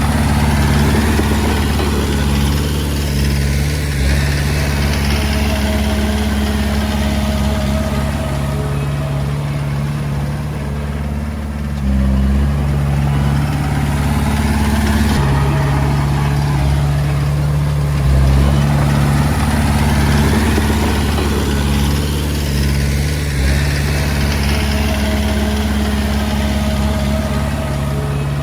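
Diesel engine of a Komatsu D20A crawler bulldozer running steadily while working, its tone changing briefly twice near the middle. Over it, a higher noise swells and fades twice.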